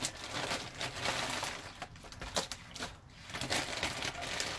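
Clear plastic zip-lock bag crinkling and rustling in irregular crackles as it is handled and the wrapped package is pulled out of it.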